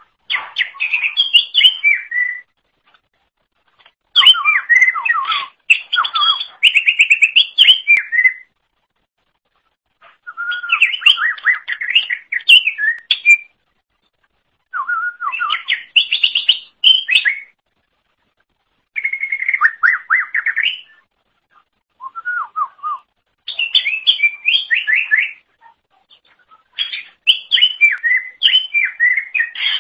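Greater green leafbird (cucak ijo) singing: loud, fast runs of varied whistled notes in phrases of two to four seconds, separated by short pauses.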